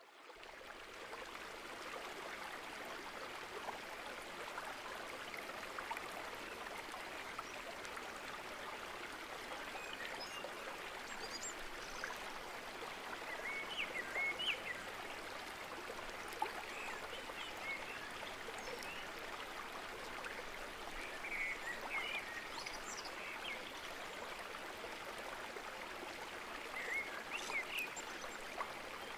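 Steady rush of a flowing stream, with brief high chirps a few times around the middle and near the end.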